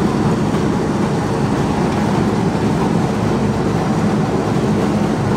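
Biomass straw briquette machine running while pressing straw into briquettes, a loud, steady mechanical drone with a constant low hum.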